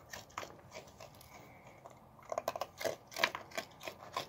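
Raccoon crunching hard dog biscuits: crisp, irregular chewing crunches, a few at first, then a quick run of them between about two and four seconds in.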